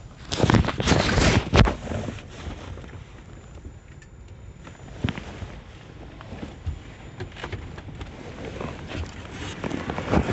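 Roadside traffic: a vehicle rushes past in the first couple of seconds, then a lower steady outdoor rumble with a few light knocks.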